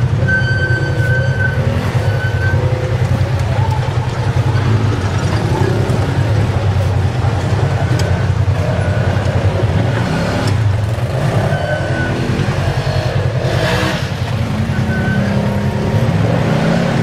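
Off-road ATV and side-by-side engines running and revving as the machines crawl up a muddy, rocky ravine trail, a loud steady engine drone that dips briefly a little after the middle.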